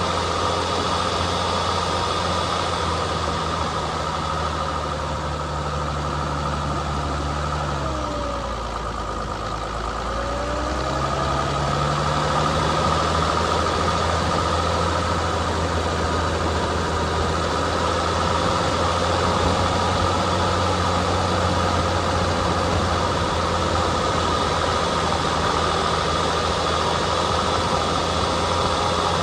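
Off-road vehicle's engine running steadily along a dirt trail. Its note drops lower for a few seconds about eight seconds in, then picks back up.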